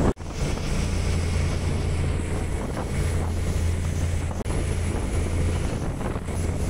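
Fishing boat's engine running with a steady low drone, under wind on the microphone and the hiss of water along the hull.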